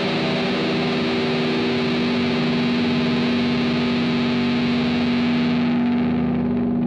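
Heavily distorted electric guitar holding one steady ringing chord, with no drums, opening an old-school black metal song; its top end dulls near the end.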